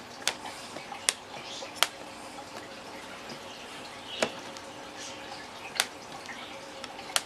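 Six sharp, separate plastic clicks, a second or two apart, as a small round LED light is pressed and worked into a hole cut in a hard plastic tackle box lid.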